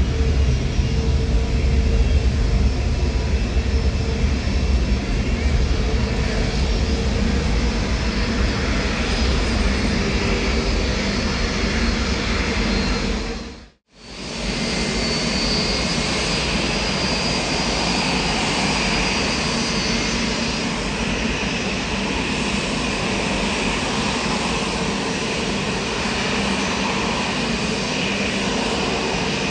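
Jet airliner engines running steadily, a loud deep engine noise with thin steady whines over it. About halfway through the sound fades out to silence for a moment and comes back as jet engine noise with a more prominent high whine.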